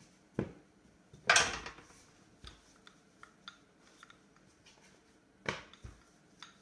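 Wooden rolling pin being picked up, set down and rolled over pastry dough on a tabletop: a few separate knocks and clatters, the loudest about a second in, with faint handling noise between them.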